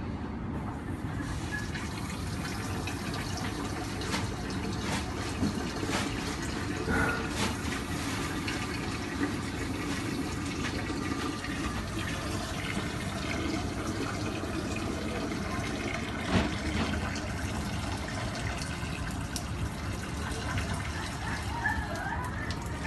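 Men's restroom ambience: water running and splashing steadily, with scattered clicks and knocks, and one louder knock about sixteen seconds in.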